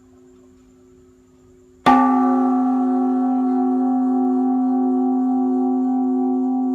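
A Buddhist temple bell (đại hồng chung) struck once, about two seconds in, then ringing on with several steady tones and a slow wavering beat. A faint low hum at the same pitches lingers before the strike.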